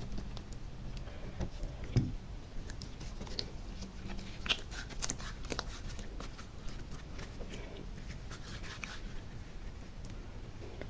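Slime and small decorations being handled, giving scattered soft clicks and small crackles, with a dull knock about two seconds in and a run of sharper clicks a little after the midpoint.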